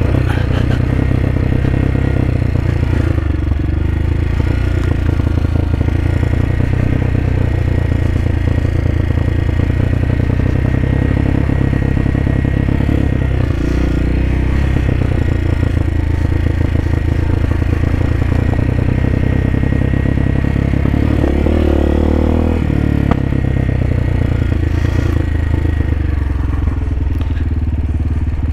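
2020 CSC TT250's single-cylinder four-stroke engine running as the motorcycle rides along a dirt track at low speed. The engine note shifts about halfway through and again about three quarters of the way in as the throttle changes.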